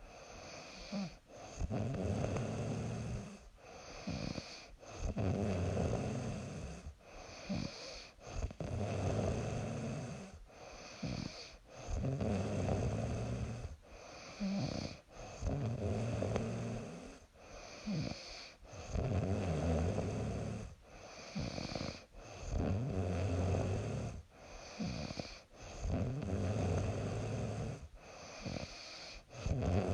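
A young woman snoring in her sleep, one snore with each breath, about every three to four seconds.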